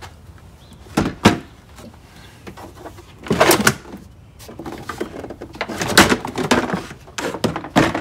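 Ford Expedition EL's rear cargo shelf knocking and scraping as it is worked loose and pulled out of the cargo area: two sharp knocks about a second in, then bouts of scraping and rattling with more knocks near the end.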